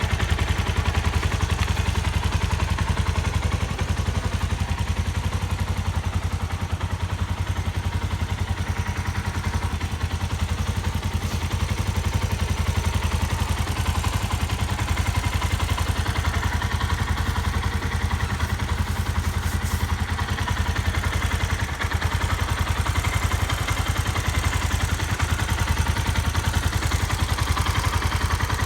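Suzuki Grasstracker Big Boy motorcycle's air-cooled single-cylinder engine idling steadily, with an even beat and no abnormal engine noise.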